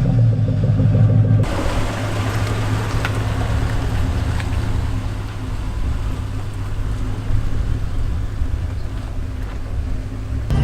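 Vehicle engine running with a steady low hum, changing abruptly about a second and a half in to a broader steady rumble with road or wind noise, as of driving.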